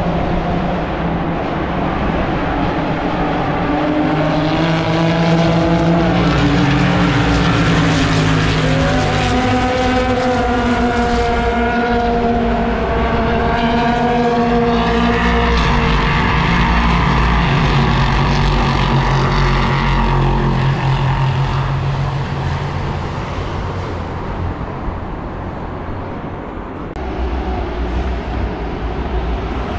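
Sports-prototype race cars passing at speed, several engines overlapping, their pitch sliding up and down as they brake and accelerate through the bend. The sound is loudest in the middle, eases off after about twenty seconds, and swells again as more cars approach near the end.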